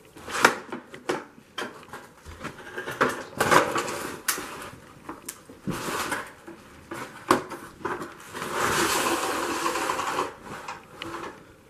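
Scattered knocks, clicks and clatter of junk being handled and shifted, with a denser scraping rustle for about two seconds near the end.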